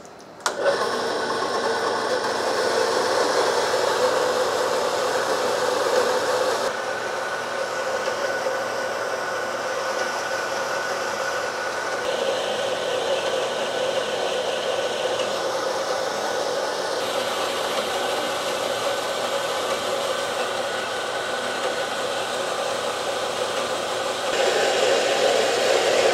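Harbor Freight horizontal metal-cutting band saw switched on about half a second in, its motor and blade running steadily as it cuts through a round steel bar. The sound changes a little around seven seconds in and grows louder near the end as the cut nears completion.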